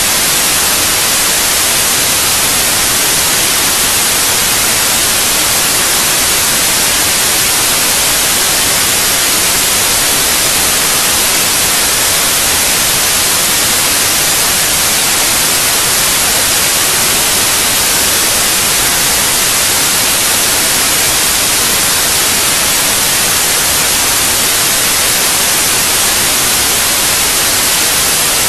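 Loud, steady static hiss, even and unchanging, heavier in the treble than the bass, with no engine note or other distinct sound in it.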